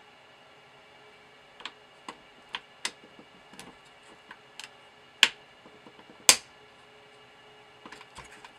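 Irregular small plastic clicks and taps from hands working on a VW instrument cluster's circuit board, fitting twist-base LED bulbs into their sockets. The two loudest clicks come about five and six seconds in.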